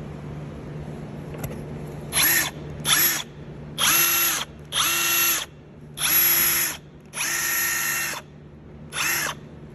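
Snap-on 3/8-inch 18 V brushless cordless impact wrench spinning freely in seven short trigger pulls, each a brief steady motor whine that starts and stops. There is no hammering.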